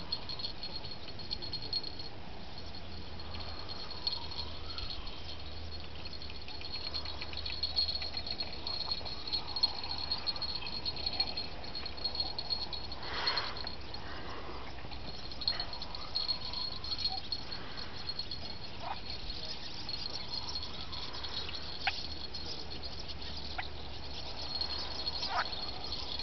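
Crickets chirring steadily in a high, fast, pulsing trill, with a few brief sharp sounds over it, the clearest about thirteen seconds in.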